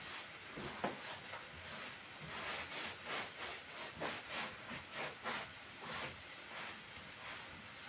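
Wet cloth scrubbing the top of a raw wooden tree-trunk slab in repeated back-and-forth strokes, each stroke a short swish, with hot soapy water.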